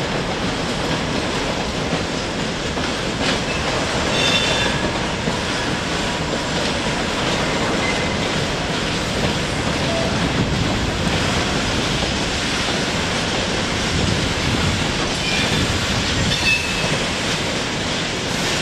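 Gondola wagons of a long freight train rolling past, wheels clattering over rail joints and points, with brief high wheel squeals about four seconds in and again near the end.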